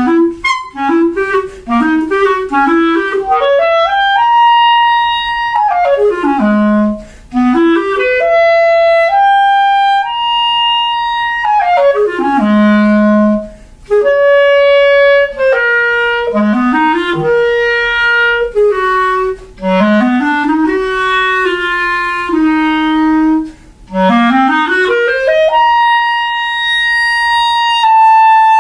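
Unaccompanied clarinet playing a solo étude: quick runs that sweep up from the low register to long held high notes, repeated several times, with the longest held note near the end.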